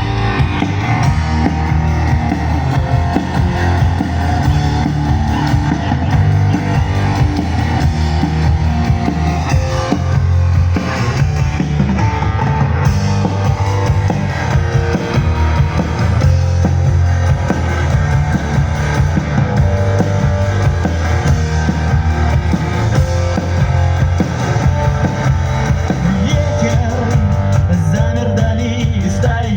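Live rock band playing an instrumental introduction with electric guitar, bass and drum kit.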